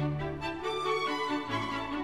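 Background music: a slow melody over held low notes.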